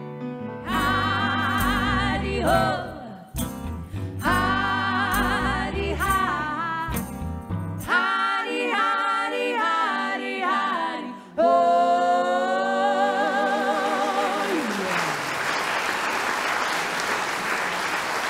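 Woman singing with wide vibrato, backed by a live band of piano, guitar and bass. The low band part drops out about eight seconds in. The voice holds a long final note that slides down and ends as audience applause rises and carries on.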